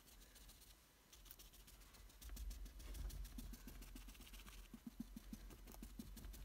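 Near silence, with faint soft pats of a foam sponge dabbing leather paint onto a car seat, coming as a quick run of taps in the second half.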